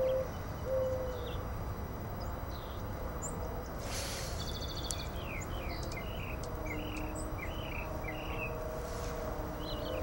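Ruby-throated hummingbird giving a rapid series of short, falling chip notes, thickest in the second half, over a low steady background rumble. A few short low steady tones near the start are the loudest sounds.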